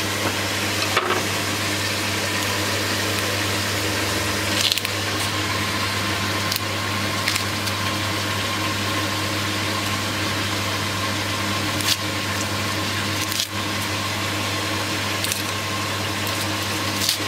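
Steady mechanical hum with a constant hiss, broken by a few soft clicks and taps.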